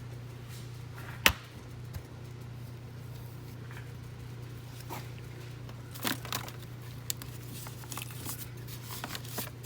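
Hand tools and engine parts being handled during a spark plug change: one sharp click about a second in, a cluster of clicks and knocks about six seconds in, and scattered small ticks near the end, over a steady low hum.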